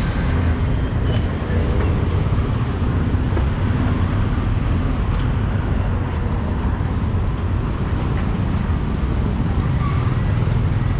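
Steady street traffic noise with a low rumble.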